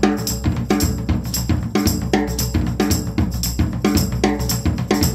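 Background music: a steady, driving drum-kit beat with bass drum and snare over a bass line.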